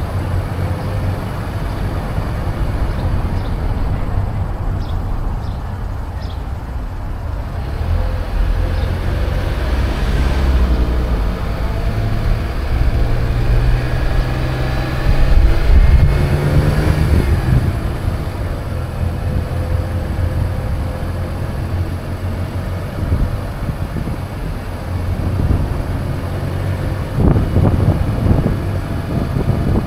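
Car driving on city streets: a steady low engine and road rumble, with the engine note climbing in pitch around the middle as the car picks up speed.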